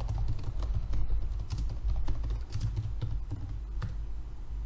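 Typing on a computer keyboard: an uneven run of quick key clicks.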